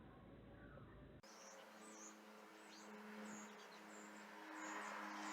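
Faint, short, high bird chirps repeated every second or so over a steady low hum, starting after an abrupt change in the sound about a second in; a low rush of passing traffic grows near the end.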